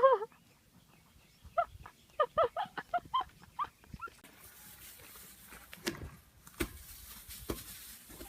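A farm animal's calls: the end of a long wavering cry at the very start, then, after a pause, a run of about ten short pitched cries. A few sharp knocks follow near the end.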